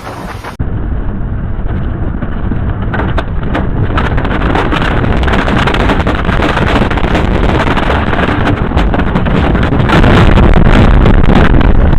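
Strong wind buffeting the microphone: a loud, steady rushing noise that starts suddenly about half a second in, builds, and is loudest near the end.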